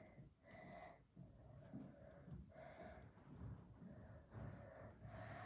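Near silence: quiet room tone with a few faint, soft sounds.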